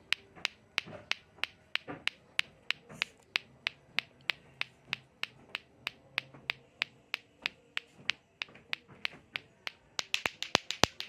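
Lato-lato clacker toy: two hard plastic balls on a string knocking together in a steady rhythm, about four clacks a second, breaking into a quick, uneven flurry of clacks near the end.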